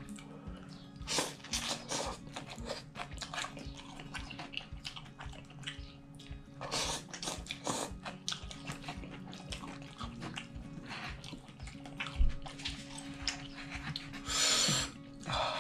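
Close-miked chewing and wet mouth clicks while eating instant kimchi ramen, with loud noodle slurps about seven seconds in, again just after, and near the end.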